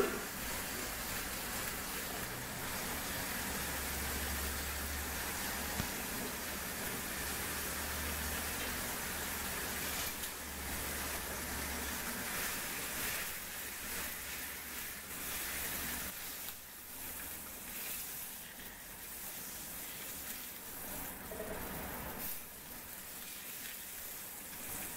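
Pork tenderloin searing in a hot frying pan: a steady sizzle of fat and juices, a little quieter in the second half.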